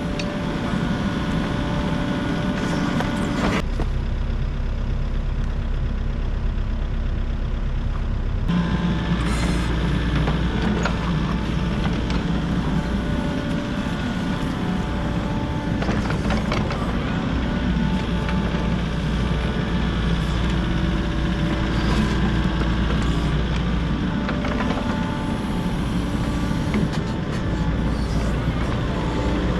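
Volvo excavator's diesel engine running steadily, with a few short knocks and clanks from the machine.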